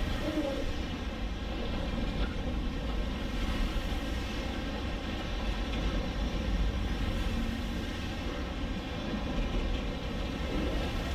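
Steady whining hum of a multirotor camera drone's propellers, an even stack of tones holding level throughout, over a low rumble.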